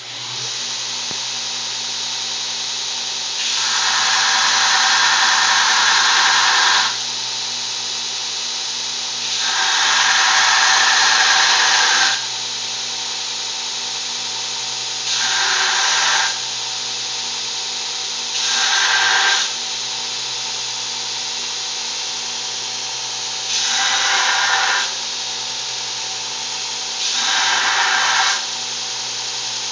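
Homemade grinder driven by a 1.5 HP electric motor, switched on and running steadily. About seven times, for one to three seconds each, a harsher, louder grinding noise rises over the motor as work is pressed against it, then falls back to the free-running sound.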